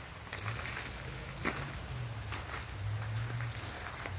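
Rain pattering in scattered, irregular ticks on ice-coated surfaces, with a low rumble coming and going underneath.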